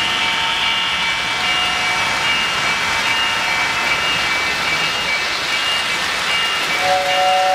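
O-gauge model trains running on three-rail track: a steady rumble and hiss of metal wheels on rail, with short high beeping tones repeating throughout. A lower two-note tone starts near the end.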